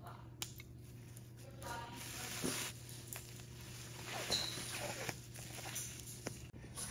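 Pet nail clipper snipping a French bulldog puppy's claws: a few short, sharp clicks spread through a quiet stretch, over faint soft murmuring.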